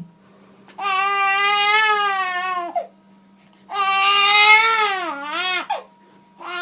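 Infant crying: two long wails of about two seconds each with short pauses for breath between, the pitch dropping at the end of each, and a third wail starting near the end.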